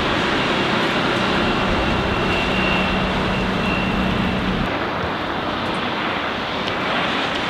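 Volvo Penta D3 190 diesel of a planing 23 ft sports cruiser, heard from the shore as a steady drone under wind noise on the microphone. The engine hum fades slightly about two-thirds of the way through as the boat runs on.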